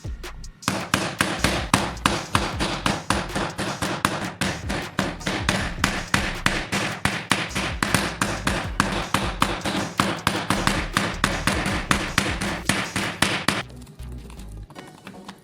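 Rapid, repeated striking, about four sharp knocks a second, starting about a second in and stopping near the end.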